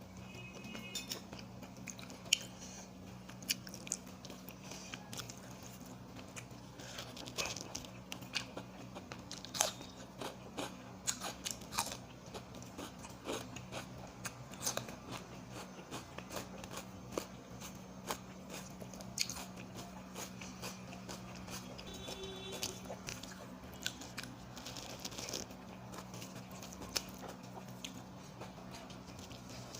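A person eating a rice meal, biting, crunching and chewing with many short irregular clicks, over a steady low hum.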